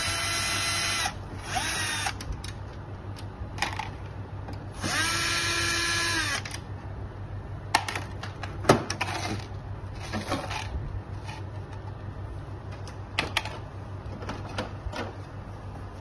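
Cordless drill-driver backing screws out of a dehumidifier's plastic housing: a whirring run of about a second at the start, a short one just before two seconds, and a longer run of about a second and a half around five seconds in that winds up and down in pitch. After that, scattered clicks and knocks.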